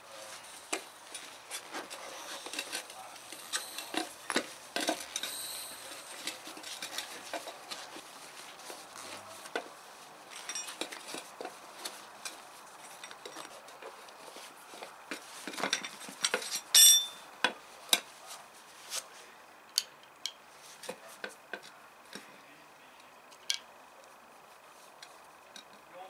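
Hands fitting a rubber inner tube and tire onto a steel wheelbarrow rim: rubbing and handling noise with many scattered clicks and metal clinks. The clicks are dense in the first half. The loudest knocks come about two-thirds of the way through, and the clicks thin out after that.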